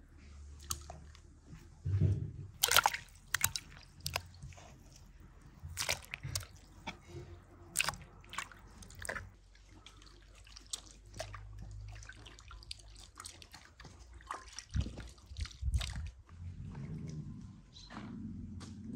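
Raw meat being handled: a knife cutting it on a wooden board, then wet squelching and slapping as chunks are squeezed and mixed by hand in a glass bowl. Scattered short clicks and knocks.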